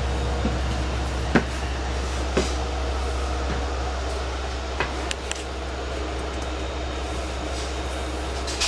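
Steady low hum inside an LIRR C3 bilevel passenger coach, with a few sharp clicks and knocks scattered through it.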